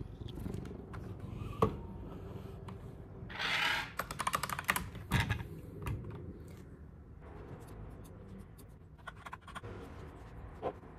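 Mechanical keyboard keys clacking in scattered irregular clicks, with a brief rustling noise about three seconds in.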